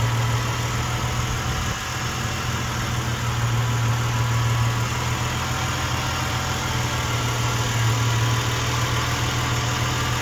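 Ford AU Falcon's 4.0-litre Intech straight-six idling steadily, with a little tick in the rockers.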